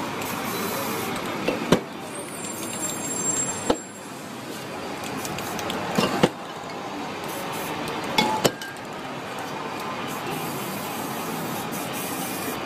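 Aerosol spray-paint can hissing, with a handful of sharp clicks, over steady city street traffic noise.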